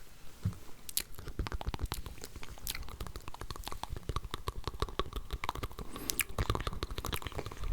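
Close-miked ASMR mouth sounds: dense, rapid clicks and smacks of the lips and tongue, several layers at once, thickening after about a second and a half.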